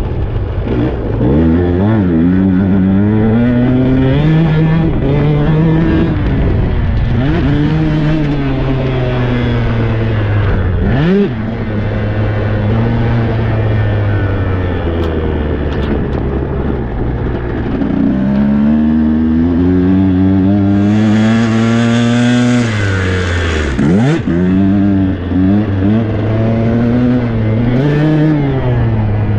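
Tuned 125 cc two-stroke Husqvarna dirt bike being ridden hard. The engine revs up and drops back again and again as the rider works the throttle and gears, with two sharp drops where the throttle snaps shut. A rush of hiss joins in for about two seconds two-thirds of the way through.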